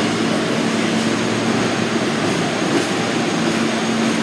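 R160 subway train moving alongside the platform: a steady rumble of the cars on the track with a constant low hum.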